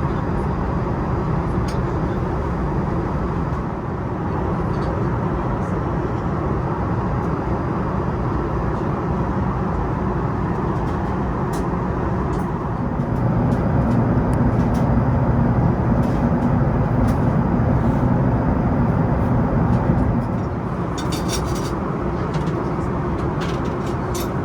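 Steady aircraft cabin noise inside an Airbus A380, a low rushing sound that swells louder for several seconds midway, with a few light clicks near the end.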